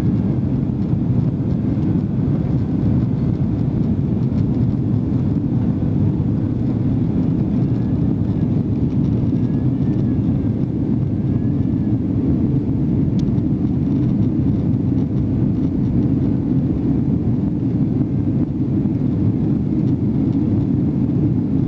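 Steady low drone of airliner engine noise heard from inside the passenger cabin, holding even throughout.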